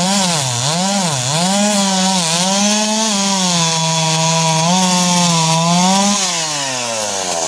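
Chainsaw running at high revs while cutting logs. Its engine note dips and recovers several times in the first two seconds as the chain bites, then holds steady, falls away near the end and cuts off suddenly.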